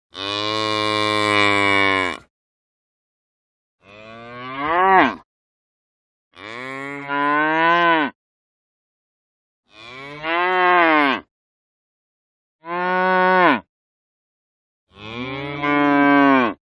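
A cow mooing six times, each moo lasting one to two seconds with a clean silence between them; several moos rise in pitch toward their end, and the last is still going at the end.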